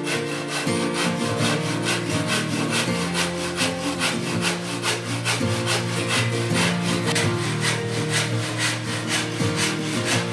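IRWIN Jack hand saw cutting across a wooden board in steady back-and-forth strokes, about two to three a second. Acoustic guitar music plays underneath.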